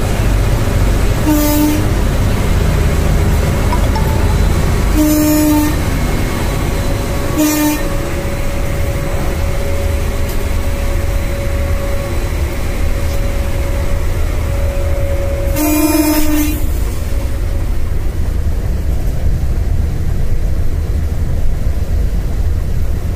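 Locomotive horn sounding four short blasts, the last about a second long, over the steady low rumble of the moving locomotive heard from inside its cab.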